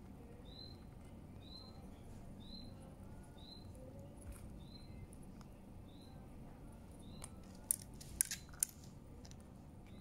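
A bird's short high chirp repeating about once a second. Near the end, an Indian ringneck parrot's beak clicks sharply against the plate a few times as it pecks at chopped vegetables.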